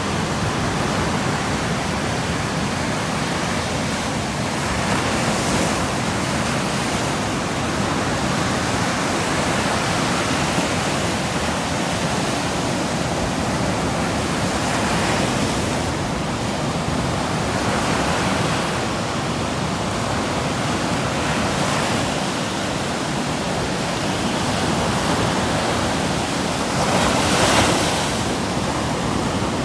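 Ocean surf breaking, a steady rush of noise that swells every several seconds as waves come in, loudest near the end.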